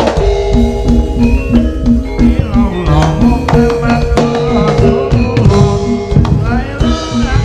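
Javanese jaranan sentherewe ensemble playing: hand drums over a quick, repeating pitched gong-chime beat, with held tones and a sliding, wavering melody line above.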